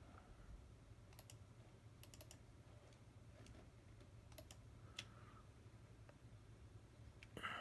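Faint, scattered computer mouse clicks, a few single and a few in quick pairs or triples, over a low steady hum, with a brief louder noise near the end.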